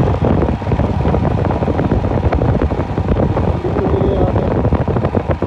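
Wind buffeting the microphone over the steady rumble of a moving vehicle driving through heavy rain, with fine crackling throughout.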